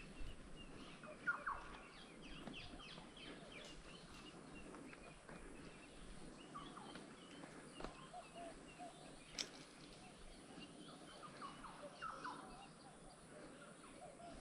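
Faint chorus of birds chirping and calling, with a few louder calls near the start and near the end, and a single sharp click about two-thirds of the way through.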